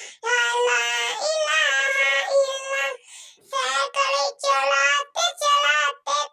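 A high-pitched, child-like singing voice in short phrases, broken by brief pauses, with a longer gap about three seconds in.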